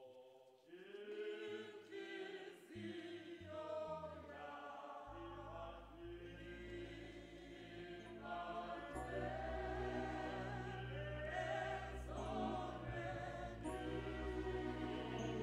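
A choir singing a hymn. Low held bass accompaniment joins about five seconds in, and the sound grows fuller from there.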